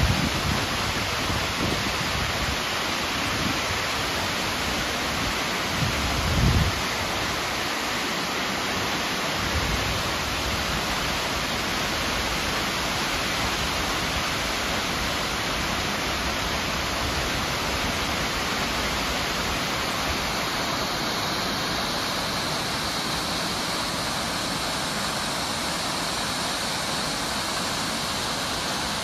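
Miners Falls rushing steadily as the water pours down the rock face into the gorge, with a brief low rumble about six seconds in.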